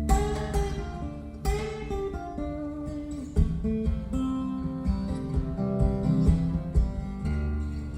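Acoustic guitar strumming and picking chords in an instrumental break of a song, with no singing.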